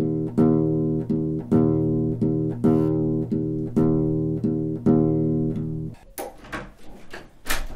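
A short music bridge on a plucked, low-pitched string instrument, repeating a figure of notes with a new attack about once a second, which stops about six seconds in. It is followed by a few sharp thumps.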